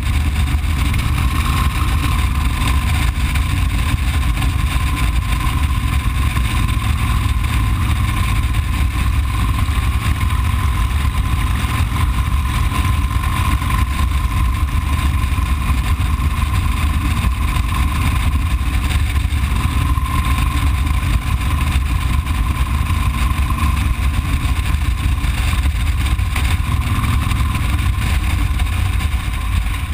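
Motorcycle riding steadily at road speed, heard from the bike itself: a continuous engine drone buried in heavy wind rumble on the microphone, with a thin steady whine running through it.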